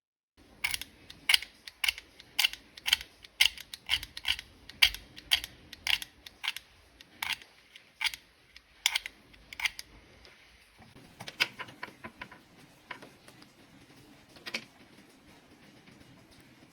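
An irregular run of sharp mechanical clicks and taps, about two a second for the first ten seconds, then a few scattered ones.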